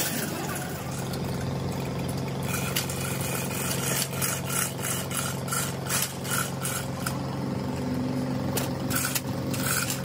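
Repeated hammer blows on metal, about two to three a second, each with a short ringing tone, starting a couple of seconds in. A steady low machine hum runs underneath.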